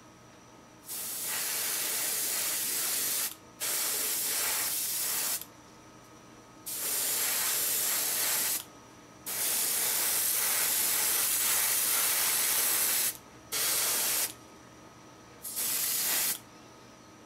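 Gravity-feed airbrush spraying at about 15 PSI in six separate bursts of hiss, each starting and stopping sharply as the trigger is pressed and released. The bursts last from under a second to about four seconds, the longest near the middle.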